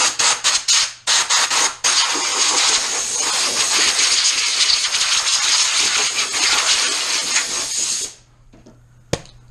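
Compressed-air blow gun blowing dirt out of an engine bay: a loud hiss in several short blasts, then one steady blast of about six seconds that cuts off sharply. A single sharp click comes near the end.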